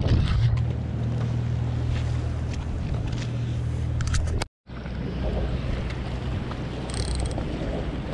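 A low, steady engine hum with wind buffeting the microphone, over open water.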